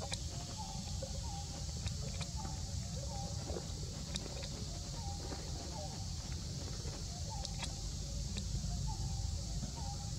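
Outdoor forest ambience: a steady high hiss and low rumble, with a string of short chirping calls about two a second and a few light clicks.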